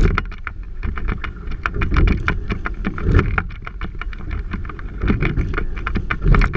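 Quad sculling boat under way, with wind buffeting the microphone and many sharp clicks and knocks from the oars and rigging. The sound swells with the strokes, about every one and a half seconds.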